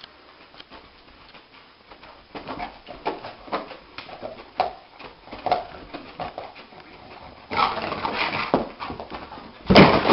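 A sleeping dog whimpering in its sleep while dreaming: a run of short whimpers about two a second, with a louder, noisier outburst near the end.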